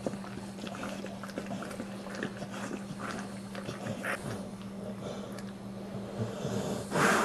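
Newborn pit bull puppy squeaking faintly while its mother licks and nuzzles it: short scattered squeaks and wet licks, with one louder burst near the end.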